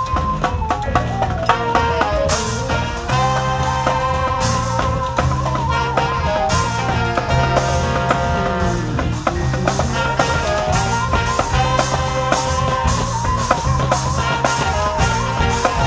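A brass parade band playing an up-tempo tune: saxophones and trumpets carry the melody over electric bass, bass drum and snare drum keeping a steady beat.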